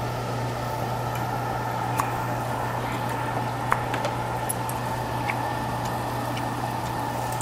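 Meat sizzling on a coal-briquette table grill over a steady low hum, with a few sharp clicks of tableware, the clearest about two and three and a half seconds in.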